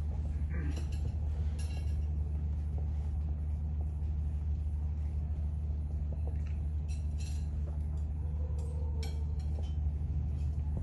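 Steady low rumble, with a few light clinks of cutlery and plates as food is served at the table.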